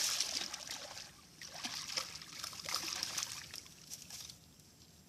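Water splashing and trickling in a few uneven bouts, dying away about four seconds in.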